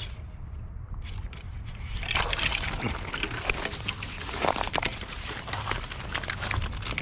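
Water splashing and sloshing at the bank as a hooked fish thrashes at the surface, starting about two seconds in and going on in irregular bursts.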